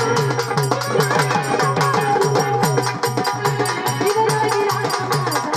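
Marathi folk music: a fast, steady drum rhythm with low pitched drum strokes under a wavering melody line.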